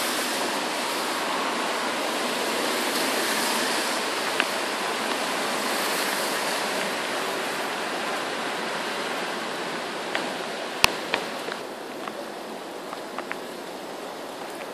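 Steady hiss of falling rain during a thunderstorm, with a few sharp clicks or pops, the loudest about eleven seconds in. The rain eases a little over the last few seconds.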